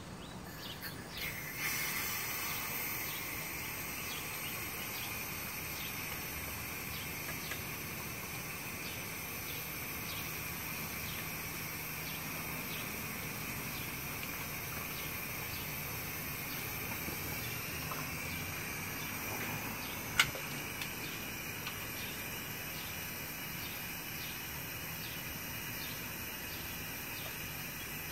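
Steady outdoor insect chorus that swells up about two seconds in and holds, with a faint low hum beneath it. A single sharp click about twenty seconds in.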